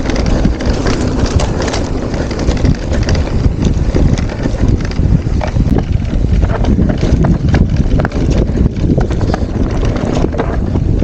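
Mountain bike descending a rough dirt singletrack: tyres rumbling over the ground and the bike clattering with frequent knocks, under heavy wind buffeting on the microphone.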